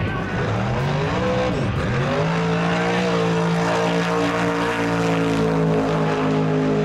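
First-generation Chevrolet Camaro drag car's engine at full throttle, launching off the line: the pitch climbs, dips at a gear change a little under two seconds in, then holds steady and high as the car runs down the strip.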